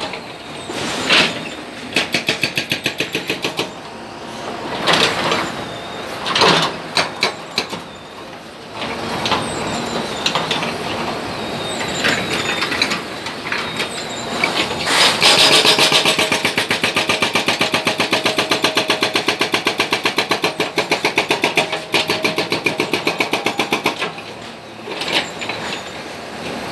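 Hydraulic breaker on a JCB 3DX backhoe loader hammering concrete and rock rubble, with a rapid, even rattle of blows in runs. The longest run lasts several seconds past the middle, and there are single heavy knocks in between. The backhoe's diesel engine runs throughout.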